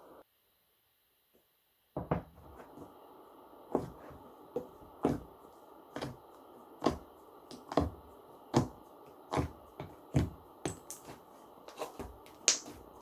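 Slime being pressed and poked by hand, giving a run of sharp pops and clicks, about one or two a second. They start about two seconds in, after a brief dead silence.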